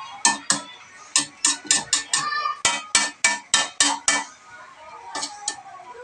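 Metal spatula clanking against a steel wok while stirring, about three to four sharp clanks a second with a short metallic ring, easing to a few lighter taps after about four seconds.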